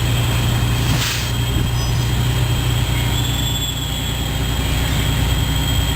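A heavy vehicle's engine idling with a steady low rumble. A short hiss of air comes about a second in.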